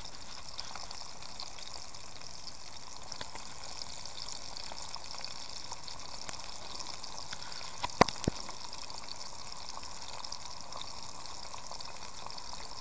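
Crucian carp frying in plenty of oil in a pan: a steady sizzle with fine crackling, and a few sharp pops, the loudest three close together about eight seconds in.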